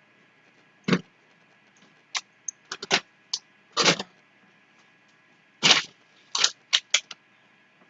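Produce and packaging being handled while unpacking a grocery delivery box: a string of short knocks and crinkles, irregularly spaced, with two slightly longer rustles near the middle and near the end.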